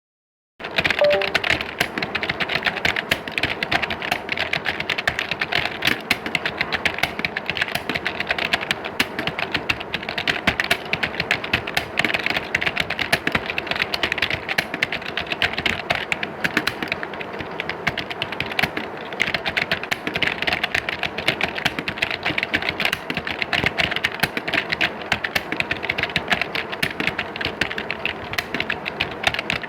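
Computer keyboards being typed on in an exam hall: many keys clicking densely and without pause, starting about half a second in.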